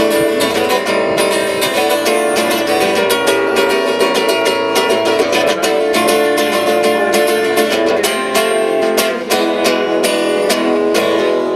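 Live band playing an instrumental passage led by strummed acoustic guitar, with steady dense chords and sharp rhythmic strokes.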